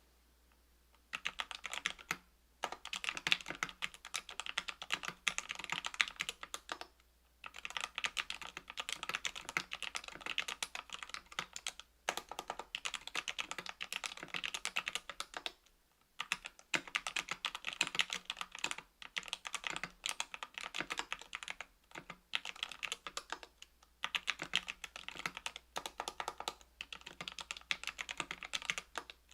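Typing on a mechanical keyboard with Krytox 205g0-lubed Equalz C³ Macho 62g linear switches, an aluminium plate and case (KBDfans Tofu 65%) and GMK keycaps. Rapid keystrokes begin about a second in and come in bursts of several seconds, broken by short pauses.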